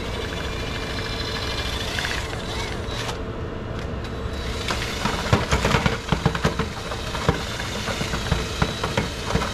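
Cordless drill spinning a homemade tulip-auger mortar mixer inside an empty plastic bucket. From about five seconds in, the auger knocks and scrapes irregularly against the bucket.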